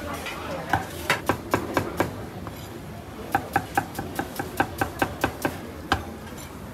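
Cleaver chopping on a thick round wooden chopping block: a few separate chops, then a quick, even run of about a dozen chops at roughly five a second, and one last chop near the end.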